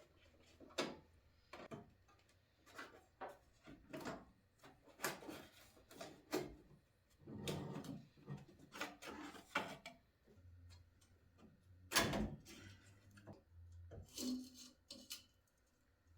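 Scattered clicks, knocks and rubbing of tools and car parts being handled while the headlight fasteners are taken off.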